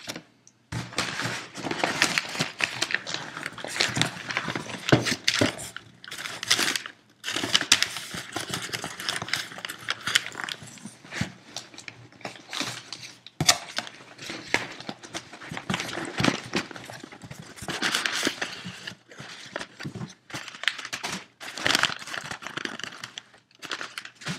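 Paper and packing material rustling and crinkling while a shipping box is unpacked by hand, with scattered clicks and taps throughout.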